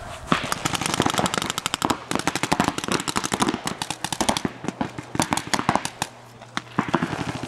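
Paintball markers firing in rapid volleys, a fast, dense stream of sharp pops from several guns at once, with a brief lull about six seconds in.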